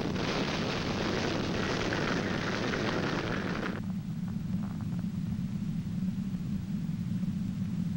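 Loud roaring wind noise that cuts off abruptly about four seconds in, leaving a steady low rumble.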